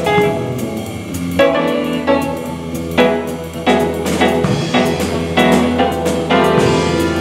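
Jazz piano playing, a run of struck chords and single notes, each sharp at the start and left to ring.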